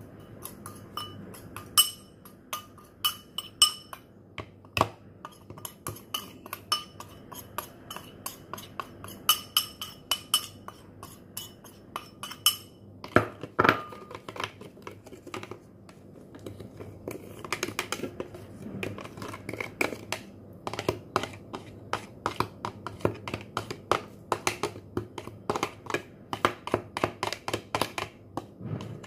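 Spoon clinking and scraping in a bowl as salt and pepper are stirred together: many quick, uneven clinks, some ringing briefly, with a louder knock about halfway.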